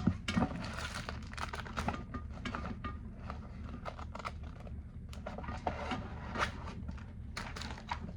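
Hands rummaging through a survival kit's contents: irregular small clicks, taps and rustles, over a steady low hum.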